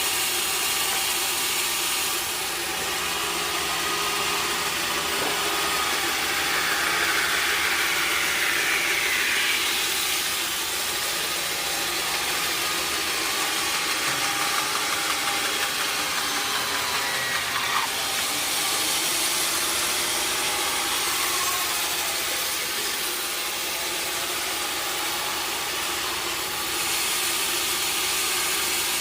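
Sawmill machinery running steadily: a mechanical hum under a hissing noise that grows louder about two seconds in, falls back partway through, and rises again near the end.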